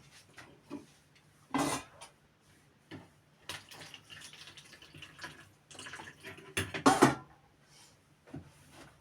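Dishes and utensils being handled: a few short clinks and clatters with some water sounds, the loudest clatter about seven seconds in.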